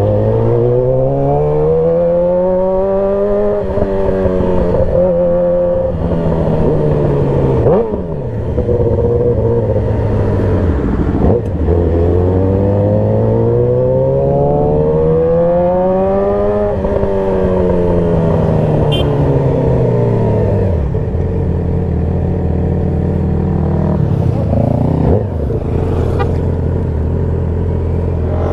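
Yamaha R6's inline-four engine, heard from the rider's seat, rising in pitch as the bike accelerates and falling as it slows. This happens twice. After that it settles into a steady low idle for the last several seconds.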